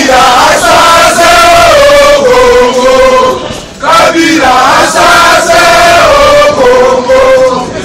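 A crowd of men chanting a protest song in unison, loud, in two long sung phrases with held notes and a brief break about three and a half seconds in.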